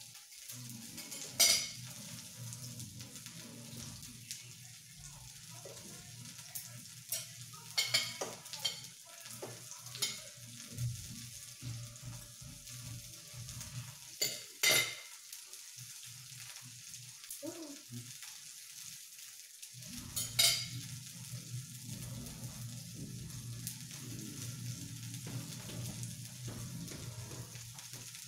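Food sizzling on the hot top plate of an electric raclette grill, a steady frying hiss, with sharp clinks of metal cutlery against plates and the grill every few seconds.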